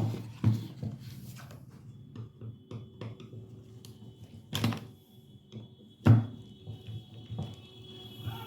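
Irregular clicks and knocks of a screwdriver and small metal parts being handled while the screws holding a microwave oven's cooling-fan motor are undone, the sharpest knock about six seconds in.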